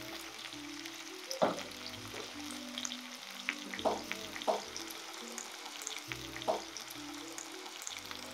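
Lionfish fillets and breadfruit slices sizzling in hot oil in two frying pans, with a handful of sharp clicks of a utensil against a pan as the fillets are turned.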